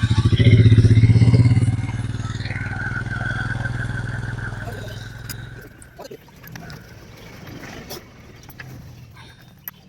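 TVS Sport motorcycle's single-cylinder engine running, the mechanic says with a noise from a clutch housing that has free play. It fades and stops about six seconds in, followed by light metallic clicks and clatter.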